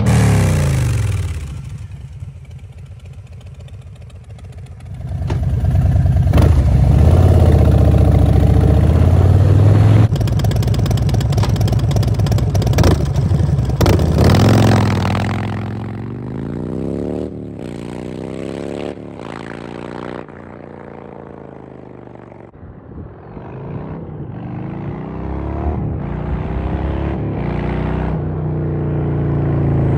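A 2019 Harley-Davidson Fat Bob's V-twin through a Vance & Hines Short Shots Staggered exhaust, with a Stage 1 tune and Screamin' Eagle Heavy Breather intake. It idles briefly, then runs loud for about ten seconds, then pulls away with rising and falling pitch as it shifts through the gears and fades into the distance. Near the end it grows louder again as the bike comes back.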